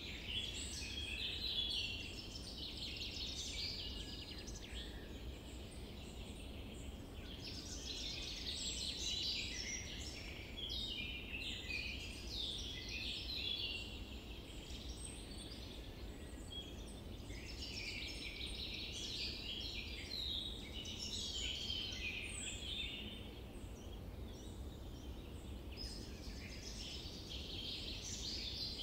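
Several small birds chirping and singing in a continuous chorus, busier in waves, over a faint steady low background noise.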